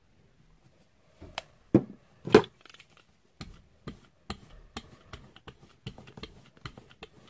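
Brayer rolled back and forth over wet paint on a gel printing plate, a short tap or click with each stroke, after two louder knocks about two seconds in.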